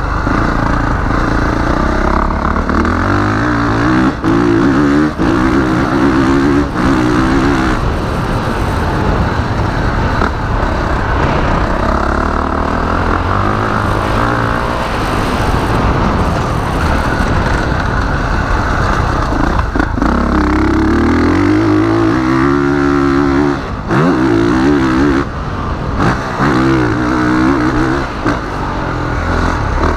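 2021 Honda CRF450R's single-cylinder four-stroke motocross engine under hard riding, its revs climbing again and again through the gears and dropping off between pulls, with wind rush over the microphone. About two seconds in, there is a minor gurgle and hesitation low in the revs.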